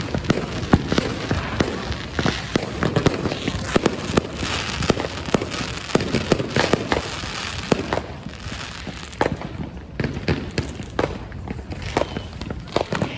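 Fireworks going off in a dense run of rapid cracks and pops. The cracks thin out and grow quieter for a few seconds near the end, then pick up again.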